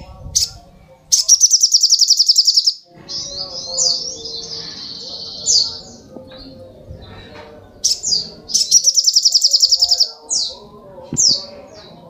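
Olive-backed sunbird singing: two fast, high trills, a longer twittering phrase between them, and short, sharp falling chips near the end.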